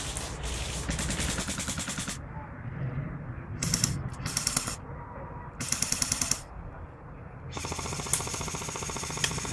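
Battery-powered airsoft electric gun firing BBs on full auto in repeated bursts, each a rapid even rattle of shots. There is a long burst at first, then shorter bursts, and another long burst starts near the end.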